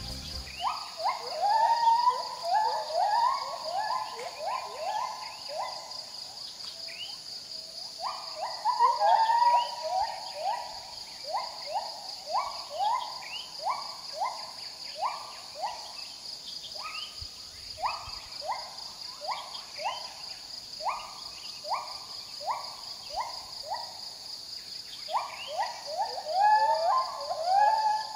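White-handed gibbons calling: a long series of short rising hooting notes, several a second, that bunch up into faster, overlapping bouts near the start, about eight seconds in and near the end. A steady high insect drone continues behind them.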